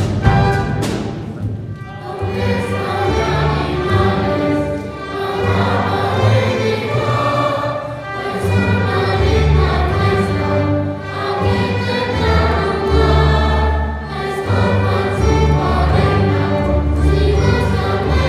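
Youth orchestra and choir performing together: the choir sings over string-orchestra accompaniment with a strong bass line from the cellos and double basses.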